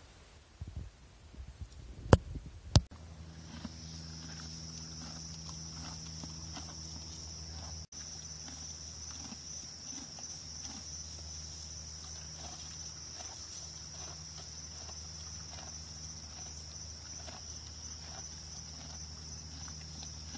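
A horse and a raccoon chewing feed side by side: faint, irregular crunching. Two sharp knocks come about two seconds in. After that a steady high-pitched hum and a low hum run underneath.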